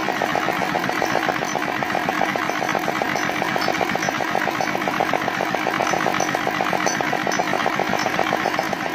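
Dongfeng R175A single-cylinder diesel engine running steadily at speed, with a fast, even firing beat.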